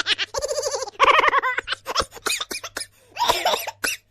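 A silly cartoon-style laugh sound effect: a high voice cackling in rapid, choppy bursts that bend up and down in pitch.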